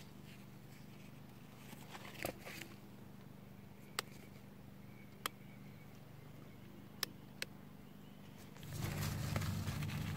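Four short, sharp squeaks from mice living under an old timber raised bed, spread between about 4 and 7.5 seconds in. Near the end a louder low rumble with rustling starts as a gloved hand handles the sweet potato vines.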